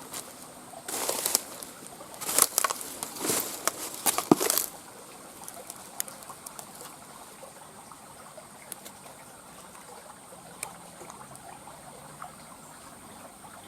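Water splashing in short, irregular bursts, twice in the first five seconds, then only light scattered ticks.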